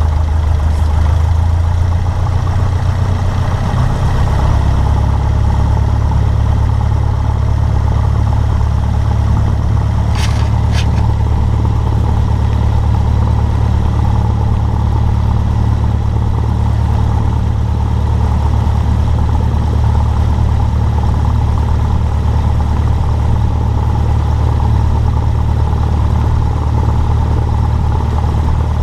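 Cessna 152's four-cylinder Lycoming engine and propeller running steadily at low power while the plane taxis, heard from inside the cockpit; the engine note shifts slightly about three seconds in. Two brief clicks sound about ten seconds in.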